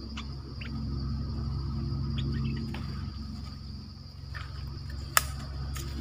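A few short, high bird chirps over a steady high-pitched insect drone and a low rumble, with one sharp click about five seconds in.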